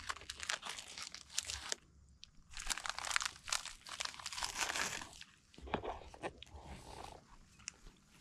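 Plastic biscuit packet crinkling, with crunching, in dense runs of sharp crackles broken by short lulls about two seconds and five seconds in.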